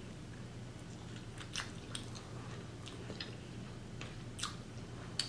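Close-up eating sounds: quiet chewing with a few scattered sharp mouth clicks, over a low steady hum.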